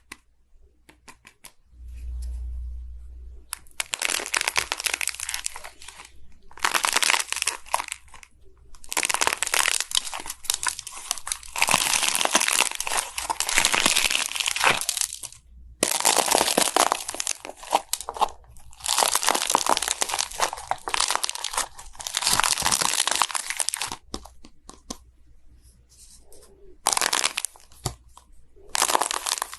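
Slime being squeezed and worked by hand, making crackling, crunching sounds in stretches of a few seconds with short pauses between.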